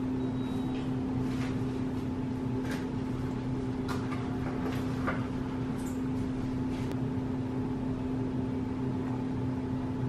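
A steady low hum with a constant pitch, with a few faint clicks and taps scattered over it.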